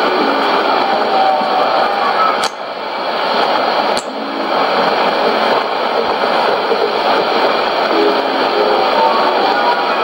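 Sony ICF-2001D shortwave receiver tuned to 7330 kHz AM, playing a weak music broadcast buried in heavy hiss and noise. Two sharp static crackles come about two and a half and four seconds in, each followed by a brief drop in level.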